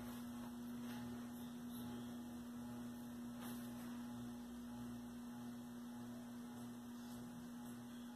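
Old Loren Sid four-blade ceiling fan running with a steady electric motor hum. A lower part of the hum swells and fades about once or twice a second, and there are a few faint ticks. The fan runs unbalanced because one blade is bent upward.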